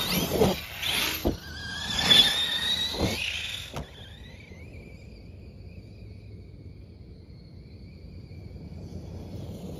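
Arrma brushless electric RC monster truck accelerating past close by: a rising electric motor whine with tyres tearing through grass, ending sharply about four seconds in. After that a faint, steady high whine remains as the truck runs far off across the field.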